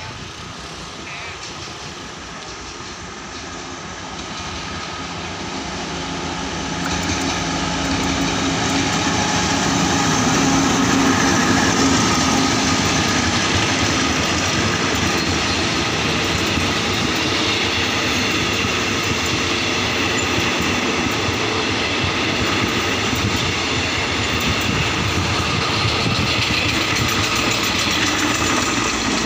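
Alsthom diesel-electric locomotive 4221, re-engined with a Caterpillar diesel, pulling a passenger train past. It grows louder as it approaches over the first several seconds, then the coaches keep rolling past steadily and loudly.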